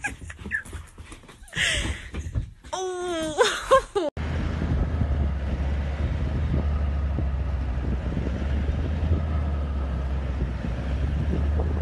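A few knocks and a short, wavering cry in the first four seconds, then, after a cut, a vehicle's engine running with a steady low rumble under wind noise, heard from inside the vehicle as it drives along a dirt track.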